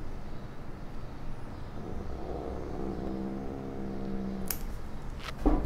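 Two sharp snips of pet nail clippers cutting a cat's claws, about a second apart near the end, over a low steady hum. A steady low-pitched drone runs for about two and a half seconds in the middle.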